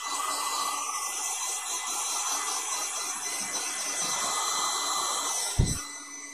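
Hand-held hair dryer blowing steadily on hair set in rollers, a rushing hiss with a faint steady motor hum. About five and a half seconds in there is a short thump, and the blowing gets quieter after it.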